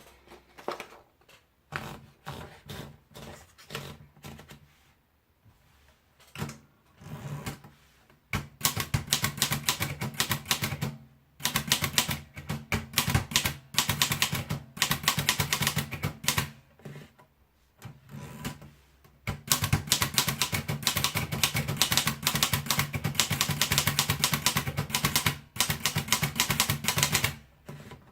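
Erika Model 5 portable manual typewriter being typed on. A few scattered key strikes come first, then from about eight seconds in there is fast, continuous typing in long runs of rapid clacks, broken by short pauses.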